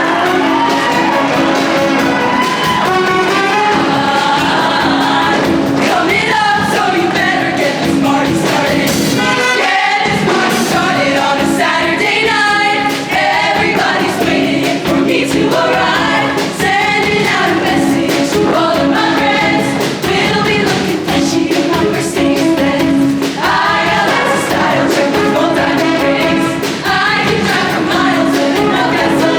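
Show choir singing in full chorus over amplified accompaniment, with a brief break in the music about ten seconds in.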